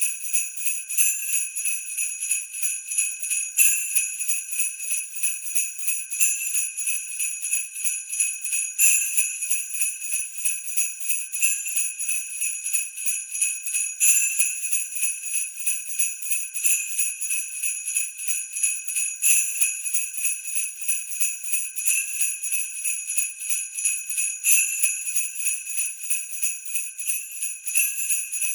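Sleigh bells shaken in a steady rhythm, a continuous jingling with a stronger accent about every two and a half seconds.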